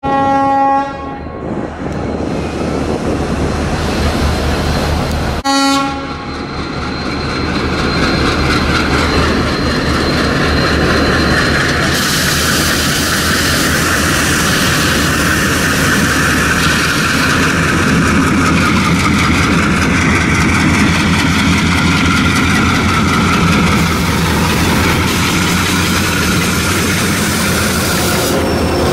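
Twin WDM-3D ALCO diesel locomotives pulling away under power, their engine sound building as they notch up and pass close by. A multi-tone locomotive horn sounds for about a second at the start and again briefly near six seconds in.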